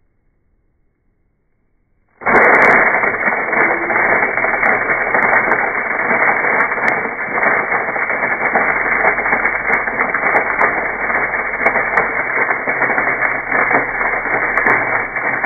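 Electric blade coffee grinder starting about two seconds in and running steadily, grinding whole coffee beans into grounds.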